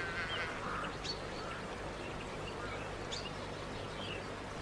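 Faint outdoor ambience: small birds chirping now and then over a steady low hum.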